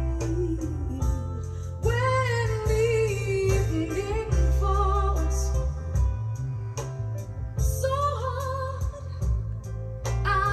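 A recorded song with a singing voice and strong bass, played back over a home hi-fi through a pair of tall floor-standing speakers with twin woofers.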